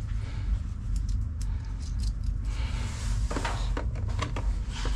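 Small metal clicks and rustling as a battery terminal clamp is handled and fitted onto a battery cable and post, with a cluster of sharper clicks from about three seconds in, over a steady low rumble.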